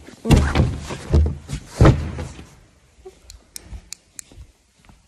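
A few heavy thuds and knocks, loudest about half a second and two seconds in, dying away into a few faint light clicks.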